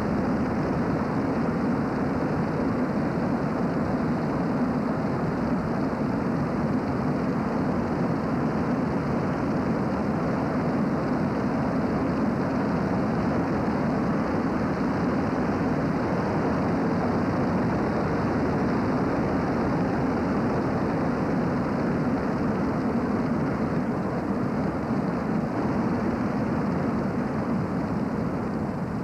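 Steady engine and tyre noise of a car driving along a road, heard from inside the cabin; it eases slightly near the end.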